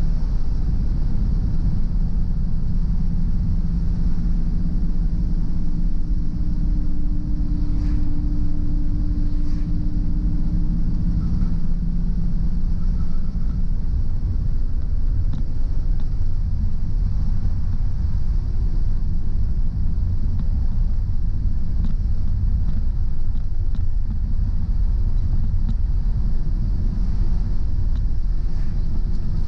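Car driving on a rain-wet road: steady low road and engine rumble with tyre hiss. A low engine hum is steady through the first twelve seconds or so, then fades into the rumble.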